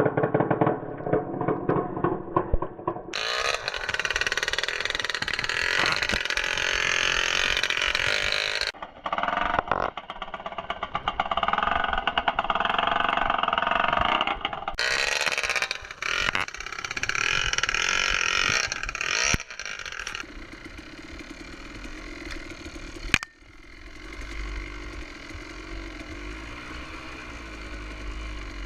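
Dirt bike engine running and revving with its exhaust fallen off, loud and raw, heard in several short clips joined by abrupt cuts. A single sharp crack comes about four-fifths of the way through.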